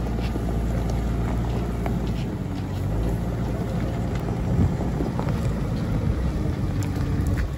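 Wheel loader's diesel engine running as the loader drives forward with a full bucket of soil and gravel, a steady low rumble whose tone shifts a little past two seconds in.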